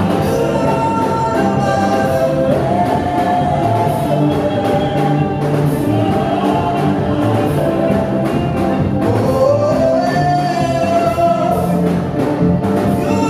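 Live gospel praise song: a male lead singer with a group of backing vocalists singing over full band accompaniment, amplified through the stage sound system.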